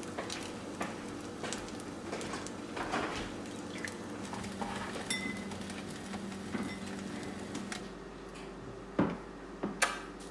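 Scattered light clinks and knocks, like household items or dishes being handled, over a steady low hum, with two sharper knocks near the end.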